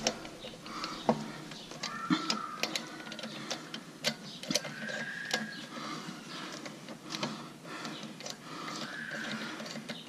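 Ratchet wrench clicking on wheel lug nuts: irregular sharp clicks, several a second, with a few short squeaks in between.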